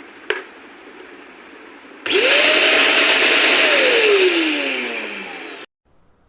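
Wet-and-dry vacuum cleaner motor starting about two seconds in. It whines up to full speed almost at once, runs briefly, then winds down in a steadily falling whine until the sound cuts off abruptly. A single sharp click comes shortly before it starts.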